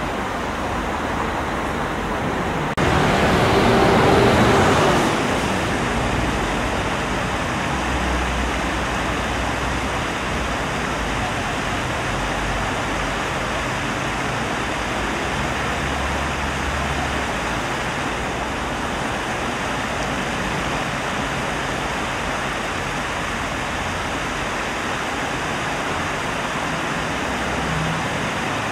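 City street ambience with passing traffic, then after a sudden change a few seconds in, the steady splashing rush of a large tiered stone fountain, loudest for a couple of seconds at first, with a low traffic rumble beneath.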